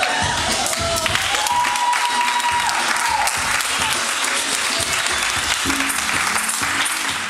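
A group of people clapping and cheering, with music playing under it and a long held cheer about a second and a half in.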